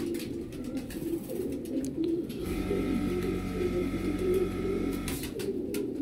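Domestic pigeons cooing continuously in a low, wavering chorus. A steady hum joins in from about two and a half to five seconds in.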